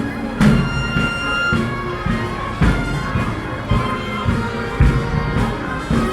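Military marching band playing outdoors: sustained wind-instrument notes over a bass drum beating about once a second.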